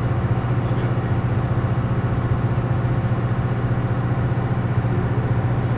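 Power-plant diesel generator engine running steadily: a loud, even, low drone with a fast firing pulse.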